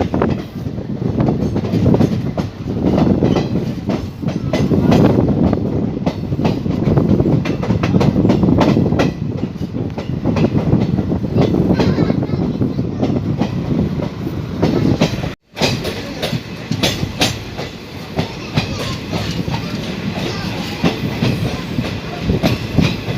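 Passenger train coaches heard from on board: a steady rumble with the clickety-clack of wheels over rail joints. About two-thirds of the way through the sound drops out for an instant, then carries on a little quieter with sharper clicks.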